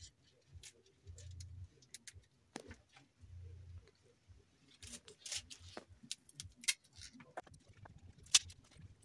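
Leafy greens being stripped and torn by hand: irregular crisp snaps and rustles of leaves and stems breaking, the sharpest snap near the end. Three short low rumbles come in the first four seconds.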